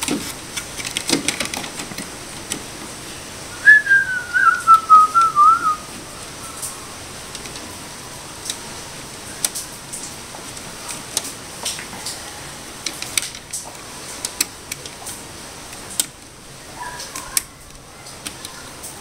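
A person whistles a short, wavering phrase that falls in pitch, about four seconds in, with a brief faint whistle again near the end. Light clicks and knocks run throughout as a circuit board is handled and fitted back onto the TV's metal chassis.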